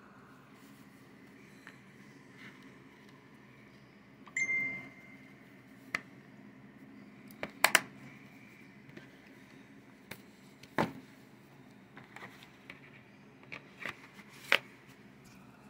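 Plastic Blu-ray case being handled and shut: scattered clicks and taps, a short high squeak about four seconds in, and a sharp double snap about halfway as the case closes, over a faint steady hum.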